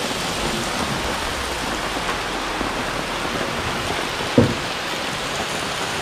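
Steady rain falling hard, an even hiss, with one brief knock about four and a half seconds in.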